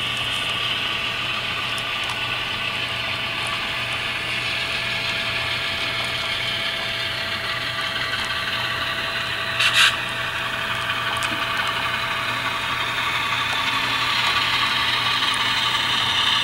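HO scale Alco C-425 model diesel locomotive with a sound decoder shoving a cut of freight cars: a steady diesel engine sound from the decoder's small speaker mixed with the whir of the model's motor, gears and wheels on the rails, getting louder near the end as the locomotive approaches. A short sharp noise about ten seconds in.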